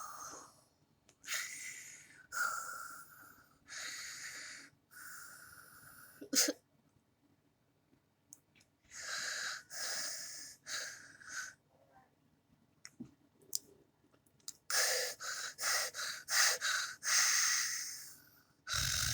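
Cartoon snoring performed by a voice actress: a series of breathy, hissing snore breaths about a second each, with pauses between them, then a quicker run of shorter breaths near the end.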